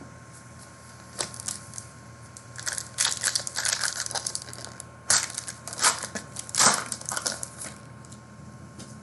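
Plastic wrapper of a trading card pack being torn open and crinkled by hand: a run of sharp crackles and rustles from about a second in until near the end.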